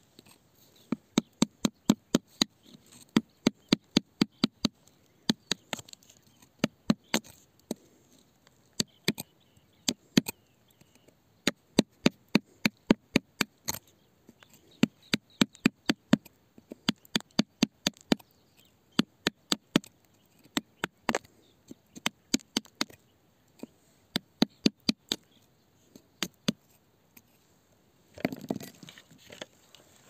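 A metal chisel tapping sharply against wet rock, chipping it away in quick runs of about four or five strikes a second with short pauses between runs. Near the end there is a softer scraping of loosened rock.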